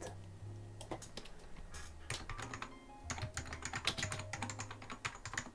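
Typing on a Macintosh LC's keyboard: a quick, irregular run of key clicks, busiest in the second half, as a file name is typed in.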